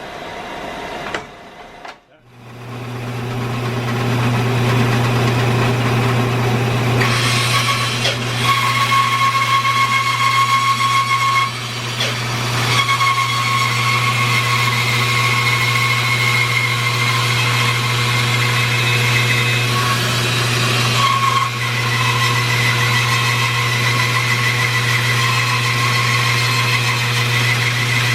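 Bandsaw resawing a green maple log on a sled: a steady motor hum under a whining blade cut. The sound dips almost to nothing about two seconds in, then builds back up and runs on steadily.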